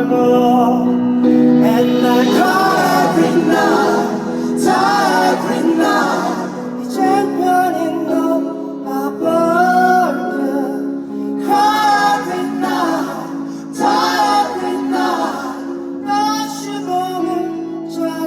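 Live performance of a slow pop song: a singer's voice carries a melodic line over sustained accompanying chords.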